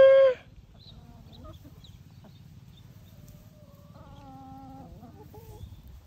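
Chickens calling: a loud held call cuts off just after the start, then soft clucks about a second in, and a longer, steady, drawn-out hen call a little past the middle, ending in a few short notes.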